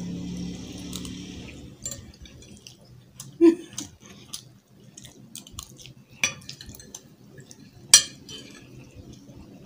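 Metal forks scraping and clinking against china plates as two people eat baked macaroni, with scattered sharp clinks, the loudest about eight seconds in.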